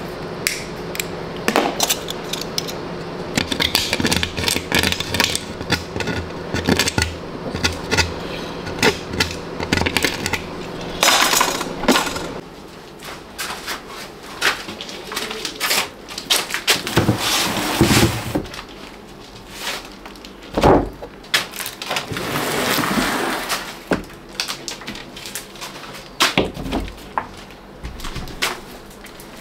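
Workshop handling noise: a long string of clicks, knocks and clatters as things are moved about, over a steady hum that stops about twelve seconds in.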